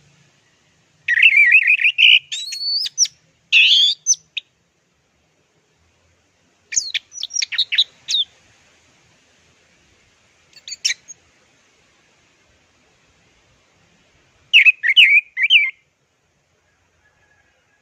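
Orange-headed thrush (anis merah) singing: five bursts of rapid, quickly changing notes, each a second or two long, separated by pauses of a few seconds.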